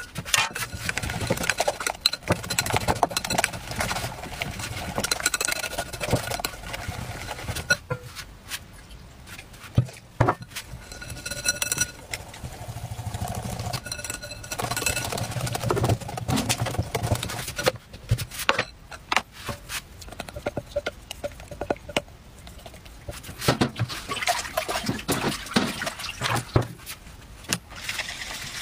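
Wire whisk beating cake batter in a glass bowl: quick, irregular clicks and scrapes of the metal wires against the glass, with wet batter sounds.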